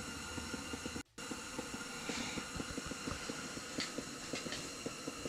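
Ice-fishing tent fabric rattling and flapping in strong wind: a dense run of quick irregular ticks over a steady hiss. The sound cuts out for an instant about a second in.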